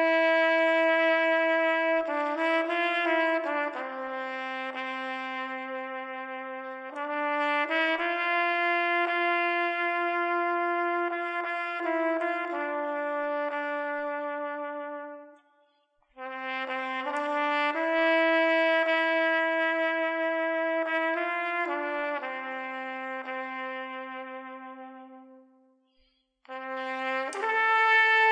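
Solo trumpet playing a slow melody in long held notes. It plays in three phrases, with a short break about halfway through and another near the end.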